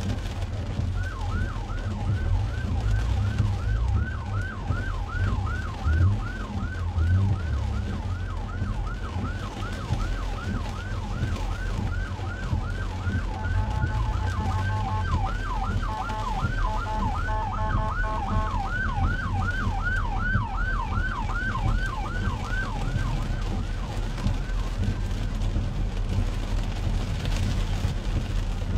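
Emergency vehicle siren in fast yelp mode, quick rising sweeps about three a second, heard from inside a car over the steady low rumble of the cabin. For several seconds in the middle, a second siren's steady stepped tones overlap it. The yelping fades out a few seconds before the end.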